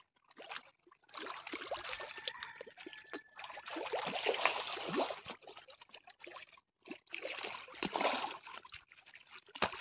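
Pond water splashing and sloshing in irregular stretches, with short pauses between them.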